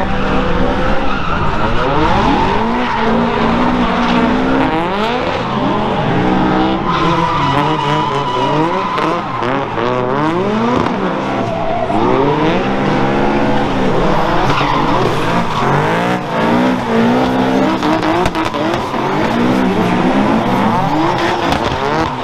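Drifting cars, their engines revving up and down again and again as the spinning rear tyres squeal and skid.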